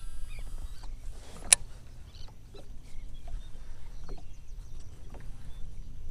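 Ambience on open water: a low steady rumble, faint scattered chirps and ticks, and one sharp click about one and a half seconds in.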